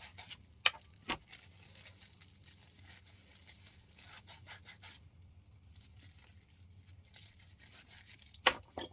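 Scratchy rubbing and scraping of a plumbing fitting being cleaned with an abrasive before soldering, with a couple of sharp clicks about a second in; it goes quieter about halfway, and two louder knocks come near the end.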